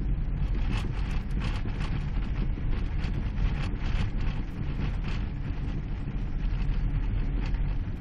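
A vehicle driving through deep snow, heard from inside the cabin: a steady low engine and road rumble, with an irregular crunching hiss from the tyres in the snow.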